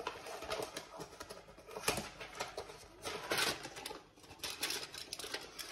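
Handling noises at a kitchen sink: scattered clicks and taps, with a sharper knock about two seconds in and a brief rustle around three seconds in.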